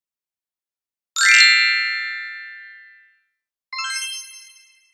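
Two bell-like chime sound effects: a bright ding about a second in that rings and fades over about two seconds, then a shorter, higher chime near the end.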